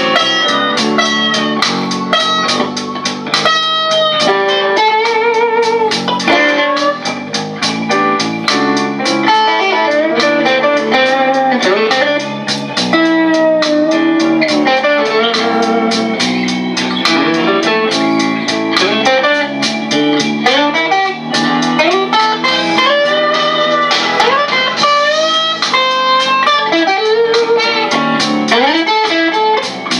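Fender Squier Stratocaster electric guitar with a crunch tone playing improvised blues lead lines, full of string bends, over a blues backing track.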